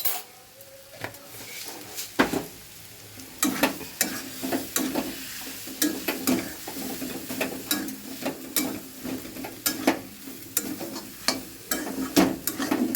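Spatula stirring the chicken-and-potato filling in a pan, scraping and knocking against the metal in quick irregular clicks, with a light sizzle underneath. The knocks are sparse at first and come thick and fast from a few seconds in.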